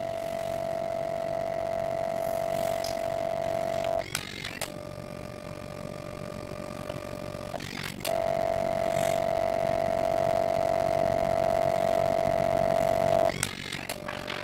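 Photobee pocket dye-sublimation photo printer running its paper-feed mechanism during colour passes: a steady mechanical whine, loud for about four seconds, then softer and lower for about three, then loud again for about five, with a click at each change as the paper reverses between passes.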